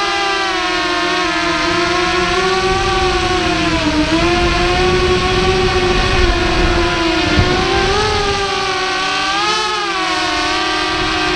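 Small FPV racing quadcopter's motors and propellers whining, the pitch dipping and rising as the throttle changes, with a low rush of wind on the onboard microphone.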